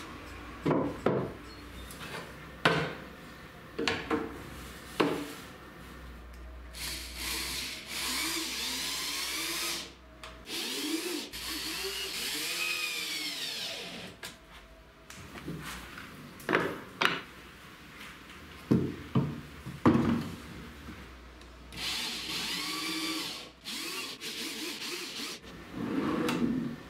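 Corded electric drill/driver driving screws to mount metal ball-bearing drawer slides, in three short runs whose pitch rises and falls as the trigger is worked. Between the runs come sharp wooden knocks, several in the first few seconds and more about two thirds of the way through.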